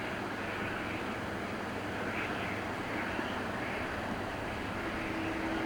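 Airbus A340 airliner on landing approach: a steady, wavering jet engine noise, with a steady hum coming in near the end.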